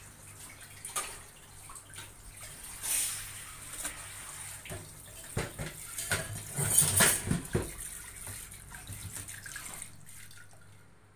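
Water splashing and trickling with irregular clicks and knocks, loudest about six to seven and a half seconds in and fading near the end.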